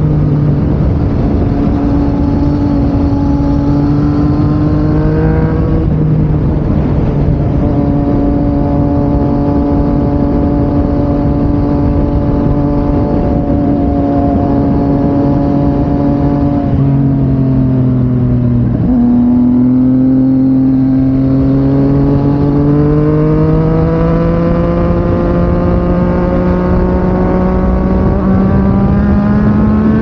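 Yamaha MT-09's three-cylinder engine through an Akrapovic exhaust, running under way with the engine note steady apart from small steps in pitch. A little past halfway the revs dip briefly, then climb slowly and evenly through the last third.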